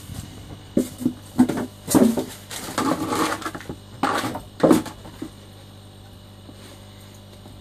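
A steady low electrical hum from the pond's submersible pump, with a run of irregular knocks and clatters about one to five seconds in.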